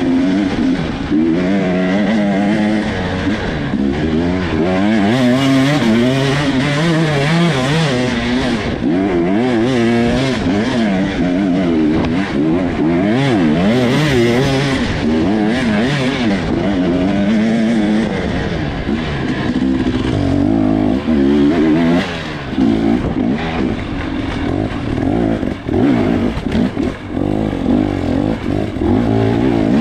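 Dirt bike engine heard from the rider's helmet-mounted camera, revving up and down constantly as the throttle opens and closes. About twenty seconds in, the revs drop lower and come in short, uneven bursts.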